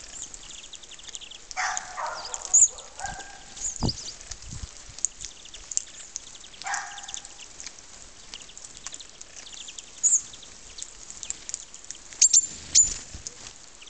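Birds calling: three short harsh calls in the first seven seconds over many sharp high chirps, which are loudest near the start and twice near the end. There is a single low knock about four seconds in.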